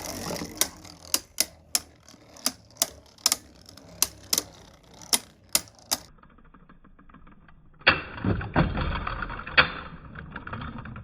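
Spinning Beyblade tops clashing in a plastic Hypersphere stadium: sharp plastic clicks and clacks, irregular at about two a second. They drop to a quiet stretch about six seconds in, then resume with denser clacking near the end.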